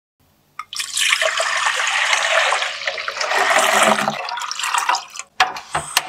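Milk being poured from bottles into a glass pot, a steady splashing pour from just under a second in until about five seconds, then a few sharp clicks near the end.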